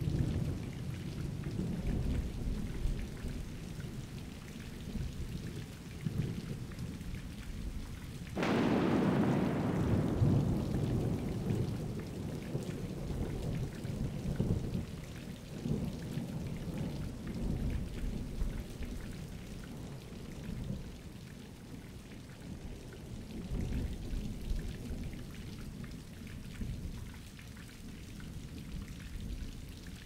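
Thunderstorm with rain: steady rain under low rolling thunder, and a sharp thunderclap about eight seconds in, the loudest moment, that trails off into a long low rumble.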